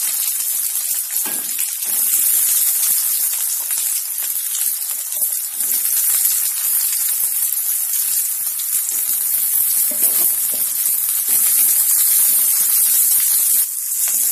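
Chopped shallots and garlic sizzling in hot sesame oil in a wok: a steady frying hiss.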